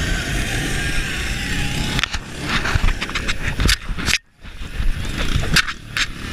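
Small youth snowmobile engine running with wind rushing over an action camera's microphone. About two seconds in the steady engine sound gives way to irregular knocks and scraping bumps of the camera and sled, with a brief near-silent dropout partway through.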